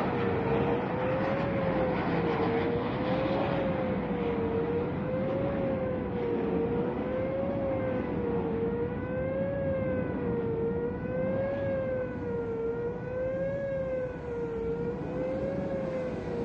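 Air base warning siren sounding for a readiness exercise: a wavering 'woo-woo' tone that rises and falls about once every two seconds. A steady rushing noise, fading slightly, runs beneath it.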